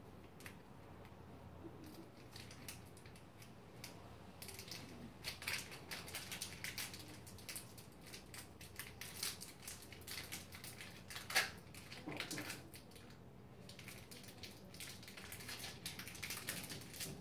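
Faint clicks, rustles and small scrapes of gloved hands handling small parts as the tip is fitted onto the pen-shaped nano device, with one sharper click a little past the middle.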